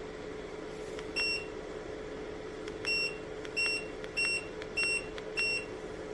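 Electric space heater's control panel beeping as buttons are pressed on its remote: six short high beeps, one about a second in, then five in quick succession from about three seconds in, each preceded by a faint click. A steady hum runs underneath.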